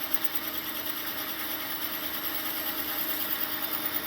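Metal lathe running steadily at slow speed while a parting tool cuts through the steel stock to free a turned thrust washer, the cut almost through the wall.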